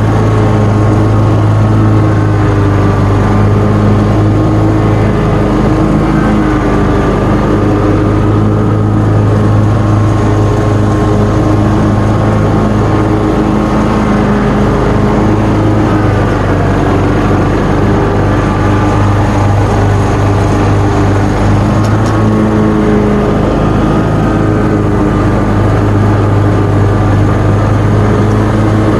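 John Deere mower's engine running steadily under load while cutting thick, wet grass. Its pitch wavers slightly now and then as the load changes.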